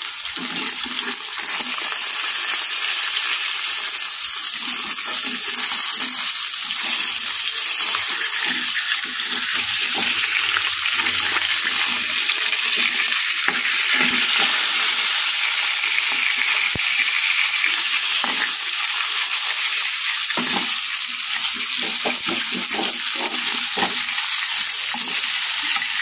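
Pieces of catla fish frying in hot oil in a frying pan: a steady, loud sizzle with scattered crackles and spatters.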